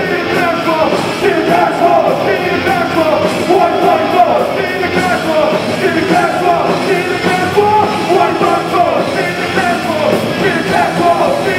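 Live punk rock band playing loud: electric guitar, bass and drums, with a singer's vocals over them.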